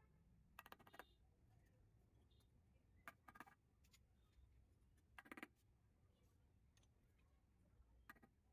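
Faint clusters of quick, light taps, four bursts of a few strokes each: cut ceramic tile pieces being tapped down into a wet mortar bed with a trowel handle.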